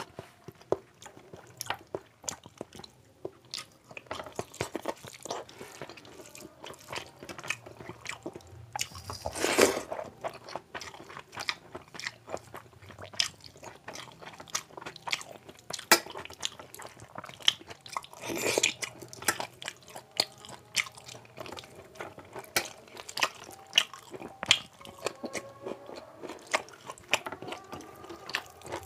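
Close-miked wet chewing and lip-smacking of a person eating soaked rice and curry by hand, with irregular clicks and occasional crunches. Two longer, louder noisy mouth sounds stand out, about nine and eighteen seconds in.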